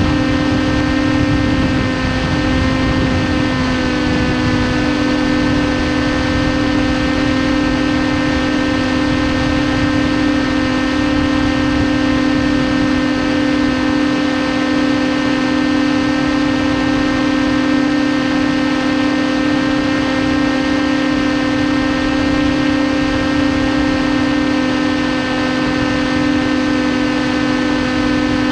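Electric motor and propeller of a TBS Caipirinha 2 FPV flying wing running at steady cruise throttle: a constant buzzing whine that holds one pitch, with a rough rushing noise underneath.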